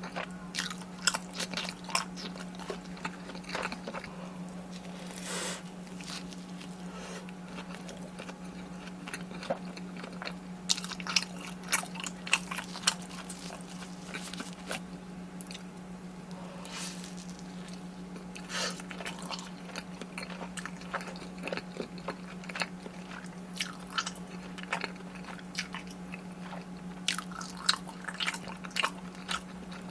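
Close-miked eating of crispy fried Korean street food: repeated bites into crunchy batter crust and chewing, with irregular crackling crunches throughout. A steady low hum runs underneath.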